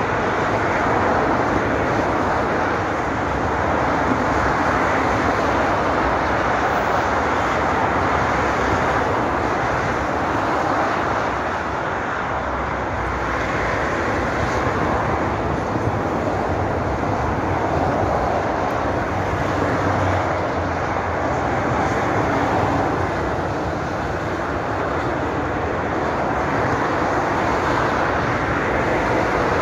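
Steady roar of motorway traffic, tyres and engines of cars passing below in both directions. The noise swells and eases gently every few seconds as vehicles go by.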